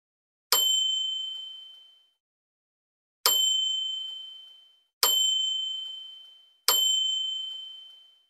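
Four bright 'ding' chime sound effects of a subscribe, like and notification-bell button animation. Each starts with a sharp click and rings out for about a second, the four a couple of seconds apart.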